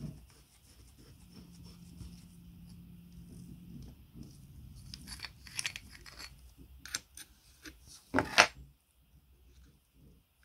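Small metal clicks and taps as an old electric motor's end housing is drawn off with a gear puller and the parts are handled, with one short, louder clatter a little after eight seconds.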